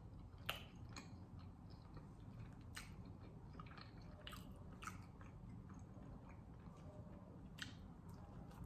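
Faint chewing of a slice of cheese-topped deep dish pizza bread, with scattered soft mouth clicks and a bite into the slice near the end.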